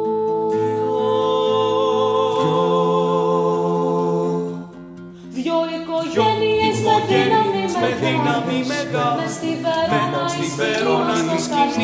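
Three-part contrapuntal singing in Renaissance style, setting Greek words: the voices hold a sustained chord for about four seconds, drop away briefly, then take up moving, interweaving lines.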